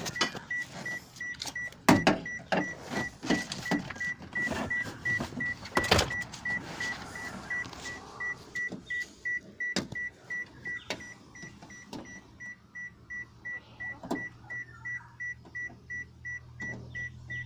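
A Perodua Myvi's warning chime beeping rapidly in an even, unbroken rhythm, over scattered clicks and knocks of hand tools working on the car door. A low steady hum comes in about two-thirds of the way through.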